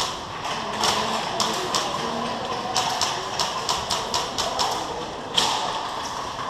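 Irregular runs of sharp clicks and taps, several a second, coming in short clusters over a steady background hiss.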